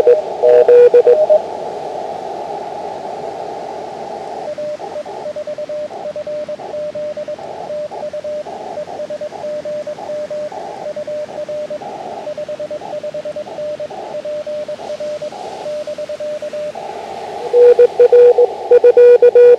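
Morse code on an Elecraft KX2 ham transceiver. Loud, lower-pitched sidetone keying at the very start and again from about two seconds before the end. In between, a weaker station's slightly higher-pitched Morse tone is heard through narrow-filtered receiver hiss.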